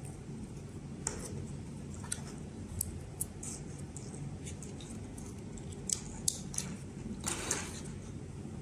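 Small plastic wire connectors and electronics boards being handled and plugged together: scattered sharp clicks and ticks, with a longer rustle and scrape near the end, over a steady low hum.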